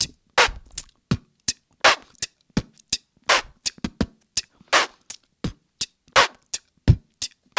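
Human beatboxing: a basic beat of short, sharp kick and hi-hat sounds, with a BMG snare made by pressing the lower lip hard against the upper lip and releasing without blowing. The snare hits land about every second and a half.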